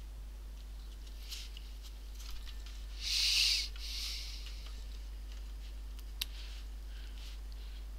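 Plastic case of an HP 250 G5 laptop being handled with gloved hands: a short rustling scrape about three seconds in, a softer one just after, and a single sharp click near six seconds, over a steady low electrical hum.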